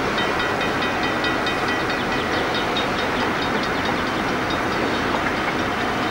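DC class diesel-electric locomotive running slowly along curved track, with a steady engine and rolling noise. Over the first three seconds or so, a rapid, high-pitched ticking and a thin whine sit on top of it.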